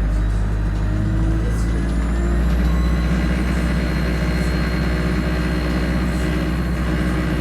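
Alexander Dennis Enviro200 diesel bus heard from inside the cabin, its engine droning steadily at low speed, with a faint steady high-pitched whine over it.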